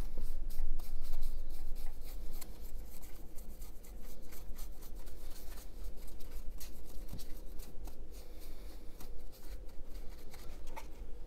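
Stiff flat paintbrush scratching in rapid short strokes over the rough plaster-and-cork walls of a model house, over a steady low hum.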